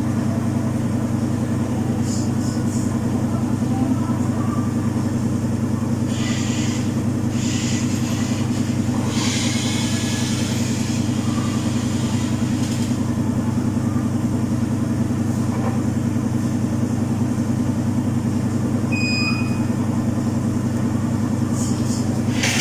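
Domus 8 kg washing machine spinning its drum with a full load: a steady low drone, with a few short hissing noises around the middle.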